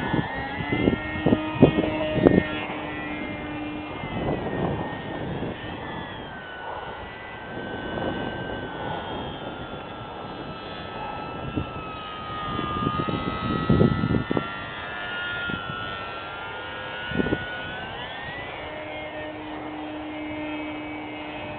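The Hacker A20-26M brushless electric motor and propeller of a small RC aerobatic airplane whining in flight. The whine slowly falls in pitch, then climbs back up about three quarters of the way through as the plane passes and the throttle changes.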